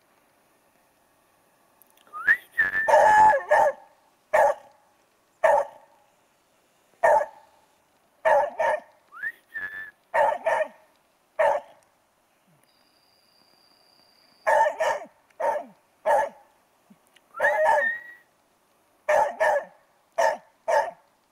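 Petit Basset Griffon Vendéen barking: about twenty short barks at an uneven pace, with a pause of a couple of seconds in the middle. A few barks are drawn out into a rising yelp.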